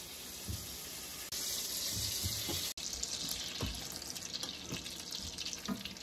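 Butter sizzling as it melts in a stainless steel saucepan on an electric stove: a steady hiss with a few soft knocks, briefly breaking off about three seconds in.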